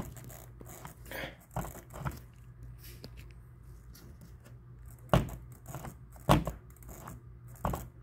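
Scattered clicks, light scrapes and a few sharp knocks, the loudest about five and six seconds in, as screws on the plastic frame of a ceiling-cassette air conditioner are loosened by hand, over a steady low hum.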